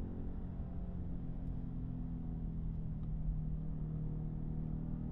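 Pickup truck engine running at low revs, a steady low rumble whose pitch shifts slightly.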